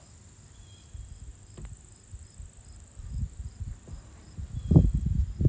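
Insects trilling in one steady high unbroken tone, with faint regular chirps about twice a second, which cuts off suddenly near the end. Low rumbling builds underneath, with two knocks near the end.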